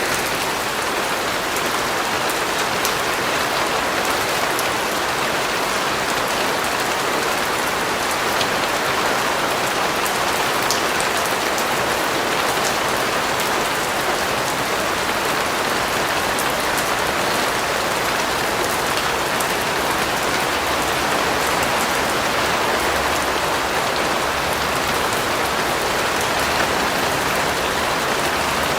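Steady, even rain falling on a surface, with fine scattered drop ticks and no thunder.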